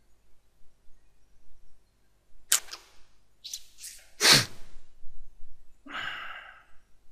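A person's sharp breathy bursts, the loudest about four seconds in and falling in pitch, then a short voiced sound about six seconds in.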